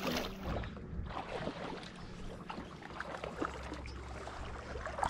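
A released bass splashing into the water beside the boat, then water lapping against the boat's hull with faint scattered clicks.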